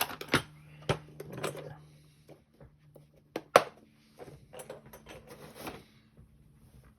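Small metal tools and lock parts handled on a work surface: a run of light clicks and clinks, with one sharp knock about three and a half seconds in.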